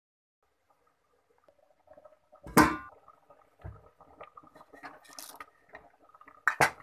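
Cooking utensils knocking against an aluminium pot of milk, with spoon and liquid sounds. It starts about a second and a half in, with one loud sharp clank just after that, scattered light clicks in the middle, and a few sharp knocks near the end.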